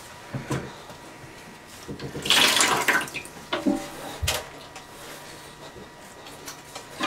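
Water wrung from a sponge splashing into a bucket for about a second, starting about two seconds in. Smaller splashes and drips come from the sponge being dipped in the near-empty toilet tank.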